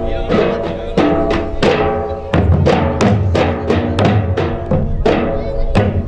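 Gujarati raas folk music with drum beats and a struck melody line, notes falling evenly about three a second.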